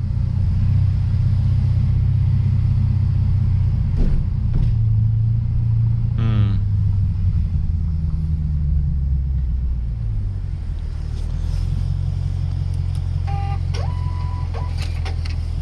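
Lexus RC F's 5.0-litre V8 running at low speed, a steady low rumble that settles lower about ten seconds in. Brief electronic beeps sound near the end.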